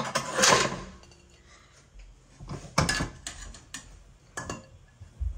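A serving spoon scooping cooked rice out of a stainless steel pot: a loud scraping rustle in the first second, then about six sharp clinks and knocks of the spoon against the pot's rim and side.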